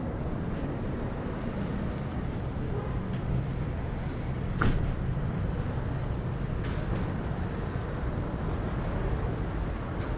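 Steady city-street background of low traffic rumble, with a single sharp click about halfway through.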